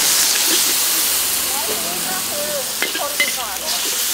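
Pad Thai rice noodles sizzling in hot oil in a wok, stirred with a metal spatula that clinks against the wok twice about three seconds in.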